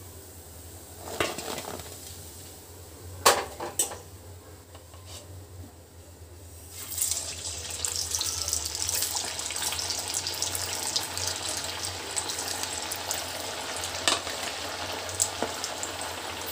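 A few sharp clinks of a steel strainer and utensils against the pan. Then, about seven seconds in, sabudana vadas put into hot oil in a kadhai start deep-frying, and the oil sizzles and bubbles steadily.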